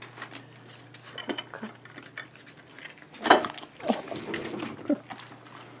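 Dogs being hand-fed food scraps: scattered small clicks and taps of them taking and chewing the food, with a louder brief sound a little over three seconds in.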